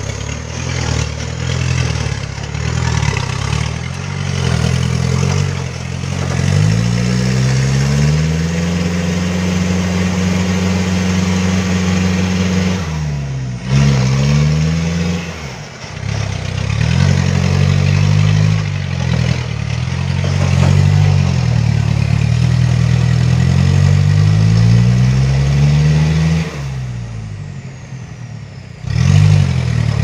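Diesel engine of a heavily loaded light truck revving hard under load as it climbs a muddy slope. The engine pitch rises and holds, dips sharply about halfway through, climbs again, then falls away near the end.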